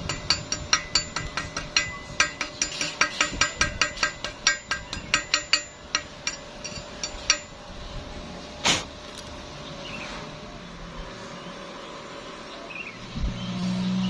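Rapid run of sharp metallic taps, a hammer striking steel, for about seven seconds, then one louder single noise about nine seconds in. A low steady hum starts near the end.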